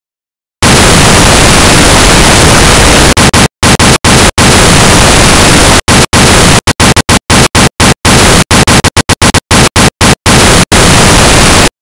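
Loud electronic white noise, a flat hiss, switches on abruptly and is then chopped by sudden brief silences that come more and more often, before cutting off abruptly near the end.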